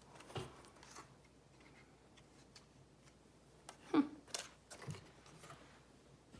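Plastic Lego pieces clicking and knocking as they are handled. A few scattered clicks, with the loudest cluster about four seconds in.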